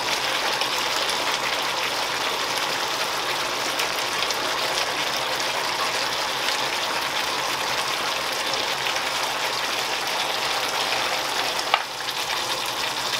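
Chicken pieces and chopped tomatoes sizzling steadily in a hot frying pan, with one short click near the end.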